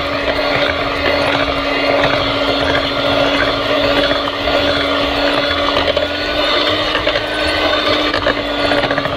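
Electric hand mixer running with a steady motor whine, its beaters churning a thick ground lentil (moong and urad dal) batter in a glass bowl. The batter is being beaten to work air into it until it turns fluffy.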